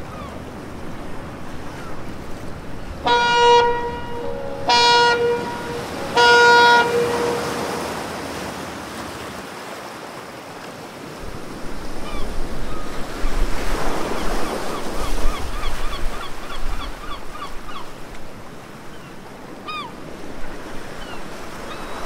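Harbor water washing and lapping steadily. About three seconds in come three short, flat horn blasts in quick succession, and in the second half a run of quick, repeated chirps at about three a second.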